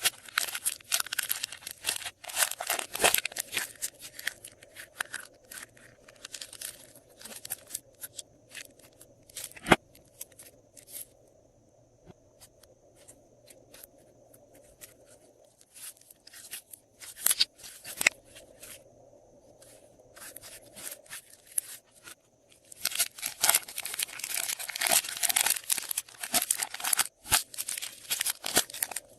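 Glossy slime being squished and stretched by hand, with sticky crackling and popping. The crackling is dense at the start and again near the end, thinning to scattered pops in between.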